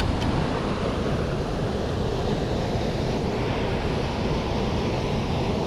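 Steady rush of water from a waterfall on a mountain creek, an even, unbroken noise.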